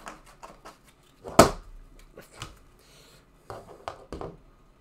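Trading cards being handled and set down on a table: a run of light taps and clicks, with one louder knock about a second and a half in.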